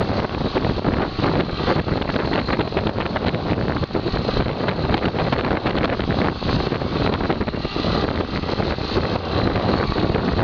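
Strong wind buffeting the microphone: a loud, gusty rumble with rapid irregular thumps of air.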